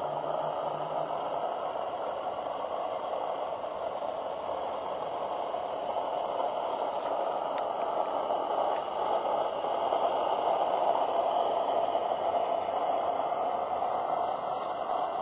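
Live-steam Accucraft DSP&P 2-8-0 garden-railway locomotive giving off a steady rushing hiss with a bubbling edge, with no distinct exhaust beats, swelling slightly about two-thirds of the way through.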